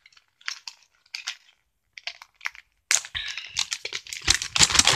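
Christmas-print paper wrapping crinkling as it is pulled off a bubble bar. A few separate crackles come first, then steadier, louder crumpling from about three seconds in.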